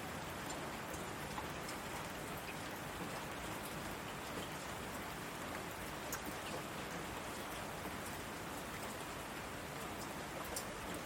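Heavy rain falling steadily on asphalt: an even hiss, with scattered sharp ticks of single drops striking close by.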